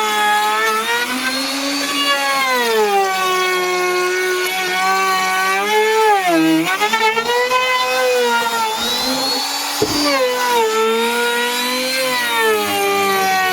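Electric wood router running and cutting a molding profile into a door, its motor whine sagging and recovering in pitch as the bit takes load, with a sharp dip about halfway through.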